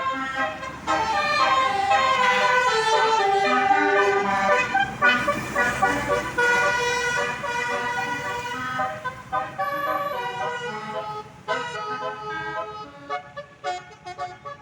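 Bus telolet horn, a multi-tone Basuri musical air horn, playing a melody of held notes that step up and down in pitch. About nine seconds in it breaks into shorter separate blasts that grow fainter.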